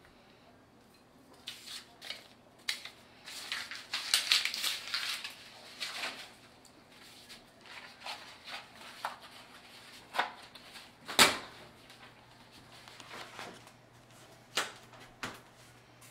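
Hands peeling an orange and moving an egg carton on a wooden butcher-block counter: a stretch of crackling and tearing of peel about four seconds in, scattered small clicks, and one sharp knock about two-thirds of the way through, the loudest sound.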